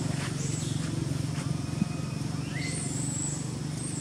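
High, thin whistled bird calls: long notes with several quick downward sweeps, over a steady low drone.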